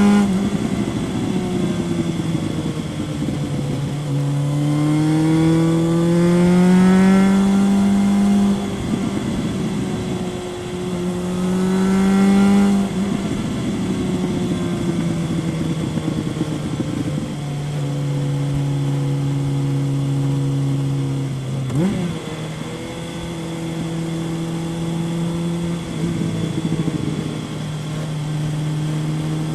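Kawasaki ZRX 1100 inline-four with a Yoshimura exhaust, heard on board while riding: it pulls up through the revs twice, each time dropping sharply in pitch at a gear change, then runs at a steadier speed with a short lift off the throttle about two thirds of the way in.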